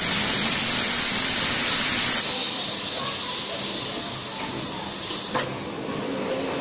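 High-frequency PP binder welding machine running: a loud hiss with a steady high whine, which drops off about two seconds in to a quieter hiss with a fainter whine that stops about five seconds in.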